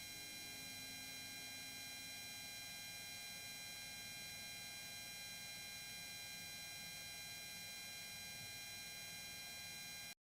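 Faint steady electrical hum with several fixed high-pitched whining tones and no rotor or voice sound, cutting off abruptly at the end.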